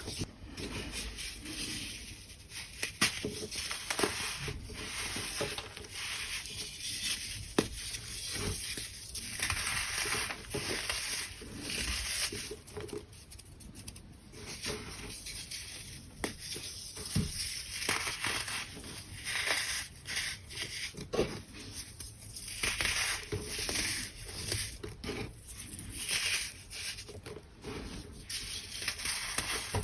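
Crunchy baking soda being crushed and crumbled: an unbroken run of uneven crackles and crunches with soft powdery rubbing.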